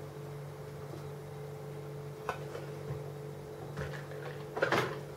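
Steady low hum under a faint knock about two seconds in and a louder clatter near the end as a large aluminium pot of hot birch sap is set down on the table beside the jars.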